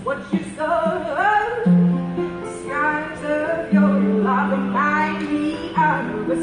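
A woman singing while playing a harp: a gliding sung melody over plucked harp notes, with several long held low notes.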